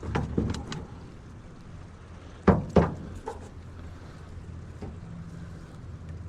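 Fishing tackle handled aboard a boat: a few light clicks, then two sharp knocks about a third of a second apart, over a steady low hum.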